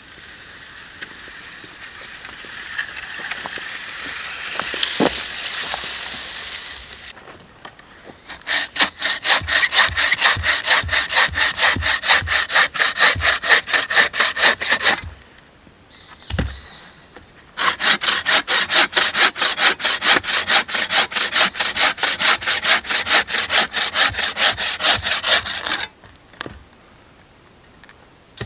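Wooden bucksaw cutting through a branch in quick, even strokes: two long runs of sawing with a short pause and a single knock between them. Before the sawing, several seconds of rustling grow louder.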